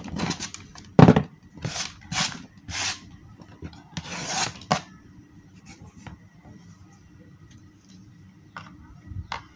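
Insulated electrical cables and a plastic junction box handled by hand: a series of short rubbing, scraping sounds, most of them in the first five seconds, the loudest about a second in, and two more near the end.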